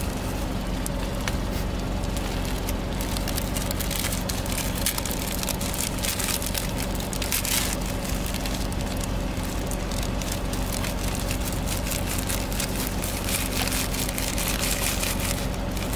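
Thin plastic snack packets crinkling as hands open them, and crushed white puffed snack discs crumbling and pattering into a palm: a dense, steady crackle of small ticks. Under it runs a steady low hum.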